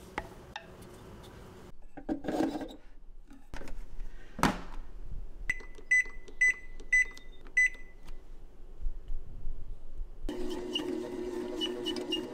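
Zojirushi bread maker: a thump, then five short electronic beeps as its control buttons are pressed to set the dough program. About ten seconds in, its kneading motor starts and runs steadily with light ticking, working the pizza dough.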